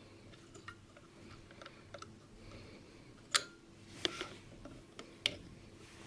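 Scattered clicks and taps of small hard parts being handled, with three sharper clicks about three and a half, four and five seconds in, over a faint steady hum.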